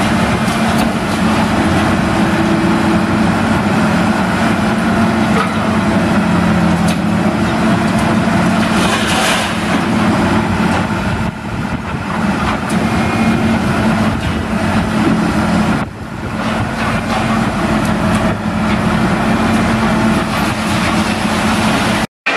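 A baler and its tractor running steadily: an engine drone with continuous mechanical clatter, breaking off for an instant near the end.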